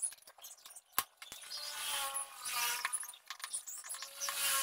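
Sharp clicks as a plastic wall socket is handled and pressed into a plywood panel, then a hand screwdriver driving a screw into the wood with a wavering squeak that comes and goes.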